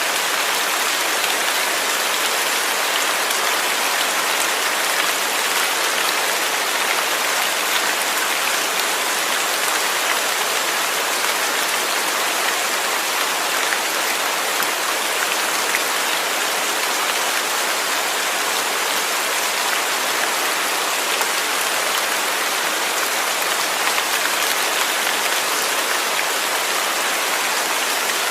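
Steady rain falling, an even hiss of many drops with faint individual drop ticks, unchanging throughout.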